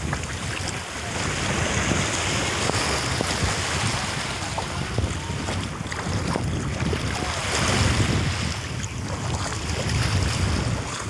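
Wind buffeting the microphone over small waves washing at the shoreline, a steady low rumble.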